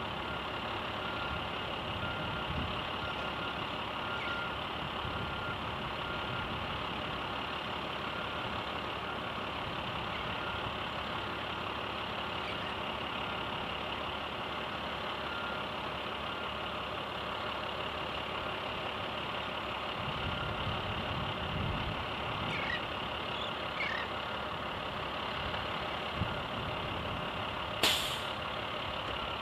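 Industrial site ambience of distant heavy machinery running steadily, with a vehicle's reversing beeper sounding in short repeated beeps for stretches. A sharp click near the end is the loudest moment.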